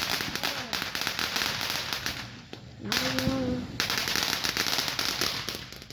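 Fireworks going off in a rapid crackle of many small pops. The crackle breaks off briefly in the middle, resumes, and dies away near the end.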